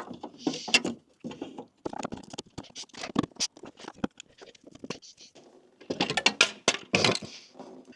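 A bumper slide bracket being handled and pushed into place on the car body: a run of irregular clicks, knocks and rustling, busiest about two seconds in and again about six to seven seconds in.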